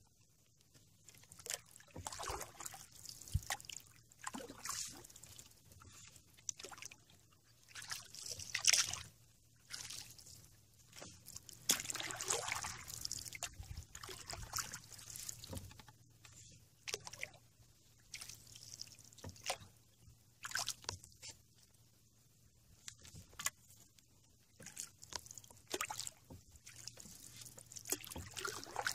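Canoe paddling on calm water: a paddle dipping and pulling, with water splashing and trickling off the blade in irregular strokes every second or two.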